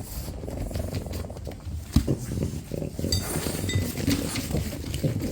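French bulldog's low, rumbling grunts and snuffles close to the microphone, uneven, with scattered clicks.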